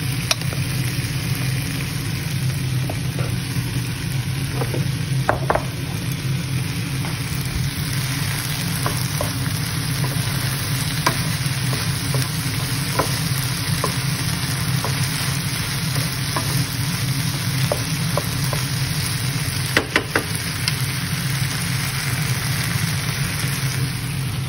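Chicken, mushrooms, green bell pepper and corn sizzling in a non-stick frying pan over a steady low hum, with scattered clicks as a wooden spatula stirs and knocks against the pan.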